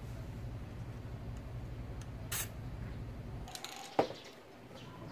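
A short burst of aerosol spray paint from a can about two seconds in, over a low steady hum that stops a little after three and a half seconds; a sharp click near four seconds.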